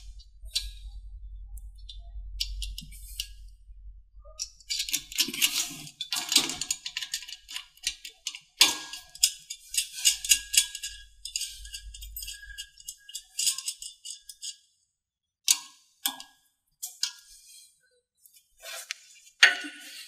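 Steel foot cable and its metal end fittings jangling and clinking against the machine's steel foot bracket as the cable is threaded through the bracket holes, in irregular bursts, with a low hum through the first half.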